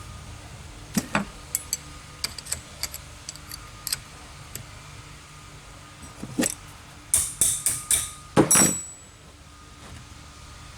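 Metal parts clicking and clinking together as a part is refitted to a fuel injection pump by hand, with scattered light taps and a louder run of clattering strikes about seven to nine seconds in.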